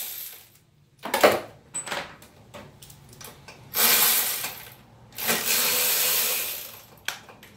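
A sharp metal knock about a second in, then a power ratchet runs in two bursts of about a second each, loosening the fuel rail bolts on the intake manifold.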